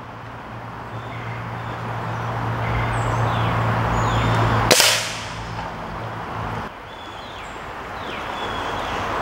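Umarex Syrix .22 break-barrel pellet rifle firing once about halfway through: a single sharp crack. Underneath are a steady low hum and short high chirps.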